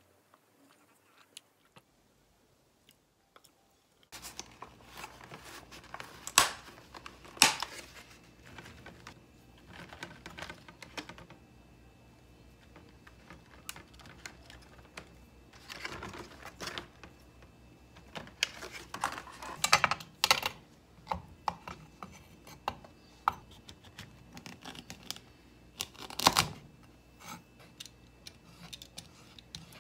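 Kitchen handling sounds while asparagus is prepped on a wooden cutting board: a clear plastic produce container clicking and crackling, and spears, knife and peeler set down with irregular sharp knocks. It starts about four seconds in, after near silence, with a few louder knocks scattered through.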